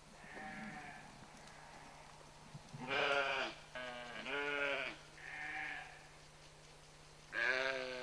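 Young farm animals bleating: a series of about five quavering bleats, the loudest about three seconds in and again near the end, with fainter ones between.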